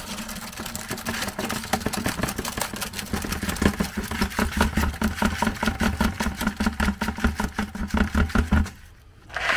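Wet concrete mix pouring out of a plastic bucket into another plastic bucket: a gritty slide with many rapid clicks and knocks. Under it runs a steady low hum that stops shortly before the end.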